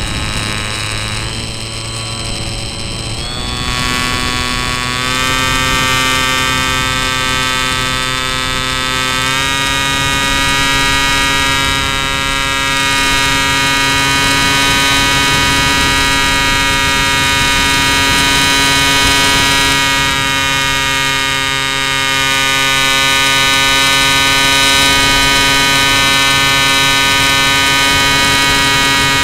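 Bixler 2 RC plane's electric brushless pusher motor and propeller in flight, a steady whine picked up by the onboard key-fob camera. The whine steps up in pitch twice in the first ten seconds, then holds steady.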